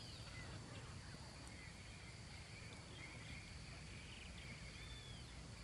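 Faint lakeside ambience: a steady high insect drone, with a few faint bird whistles now and then.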